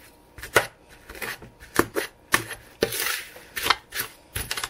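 A utensil knocking and scraping against a mixing bowl in short sharp strokes, roughly two a second, as a bouillon cube is mashed into dry seasonings.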